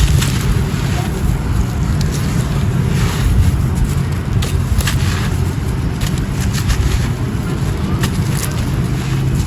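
Dry, gritty grey concrete crumbling close to the microphone: a steady low rumble with scattered crunchy crackles.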